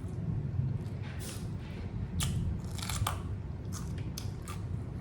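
Close-up chewing of a homemade taco: irregular crisp crunches and wet mouth clicks.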